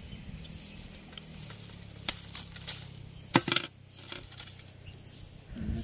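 Pliers snipping the steel binding wire tied around a foil-wrapped roasted fish: sharp metallic clicks, one about two seconds in and a stronger double click a second and a half later.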